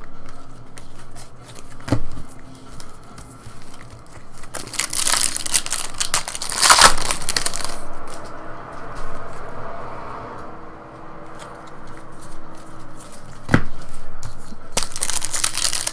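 Trading cards and foil card packs being handled, crinkling and rustling in bursts, with a couple of sharp clicks; the foil wrapper crinkles again near the end as the next pack is picked up.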